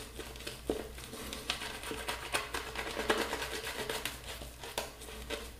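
Boar-bristle shaving brush, heavily loaded with shave soap, swirled over the face to build lather. It makes soft wet brushing with a steady, irregular run of small clicks and crackles.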